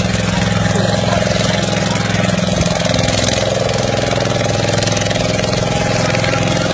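A motorboat's engine running steadily at an even speed, with a constant drone and no change in pitch.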